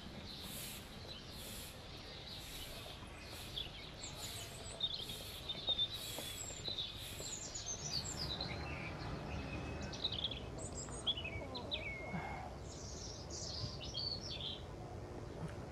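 Small birds chirping and twittering, a scatter of short chirps and quick sliding notes, over steady outdoor background noise, with a few soft knocks around the middle.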